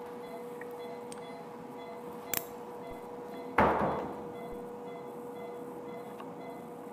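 A single sharp metallic clink of surgical instruments about three and a half seconds in, ringing briefly as it dies away, after a smaller click a second earlier. A steady low tone hums underneath throughout.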